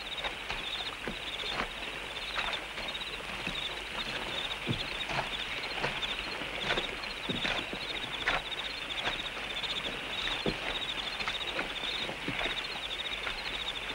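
Jungle ambience: a steady, high, fast-pulsing chirring, like insects, with scattered short clicks and rustles of leaves and stems.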